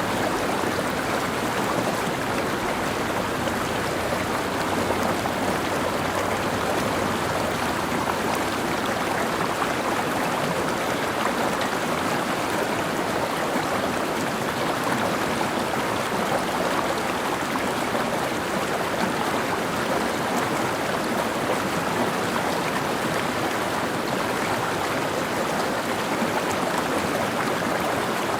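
Mountain stream flowing over rocks, a steady rushing and gurgling of water.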